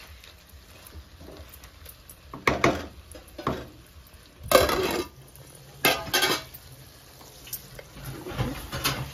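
Wooden spatula stirring and scraping thick chicken masala around a metal kadai, with a scrape or knock against the pan every second or so and the longest stroke about halfway through. A faint sizzle runs beneath as it cooks on a low flame.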